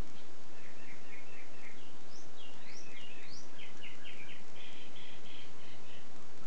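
Northern mockingbird singing: a string of varied short phrases, with chattering runs, quick sweeping notes and rapid repeated notes, over a steady background hiss.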